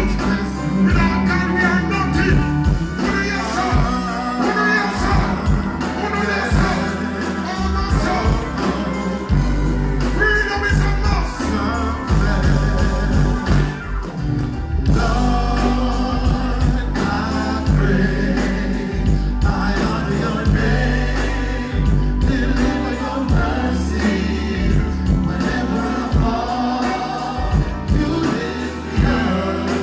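Live concert music through a stage sound system: vocals over a heavy bass beat.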